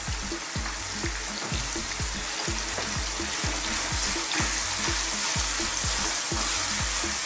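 Cubes of lamb and chopped garlic frying in hot oil in a non-stick pan, giving a steady sizzling hiss, with a wooden spoon stirring through the meat in the second half. A steady low beat of background music runs underneath.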